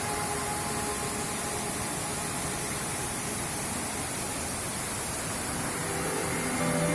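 Steady, even rushing of a waterfall. Music comes in near the end.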